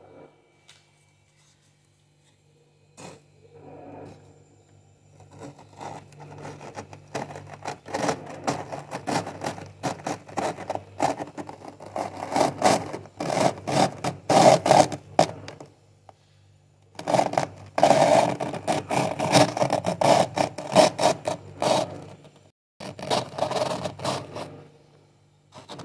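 The edge of a plastic food container scraping thick frost off a freezer's inner wall in rapid repeated strokes, in three bouts separated by short pauses about two-thirds and five-sixths of the way through. A faint low steady hum runs underneath.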